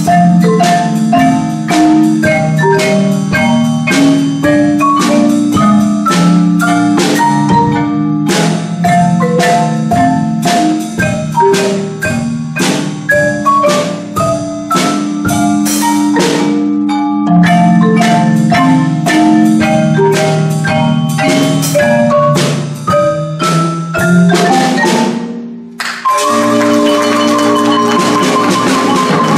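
Mallet percussion ensemble, marimba and vibraphones, playing a lively piece of quick struck notes over ringing low notes. Near the end the music breaks off for a moment and resumes with rapidly repeated, shimmering rolled notes.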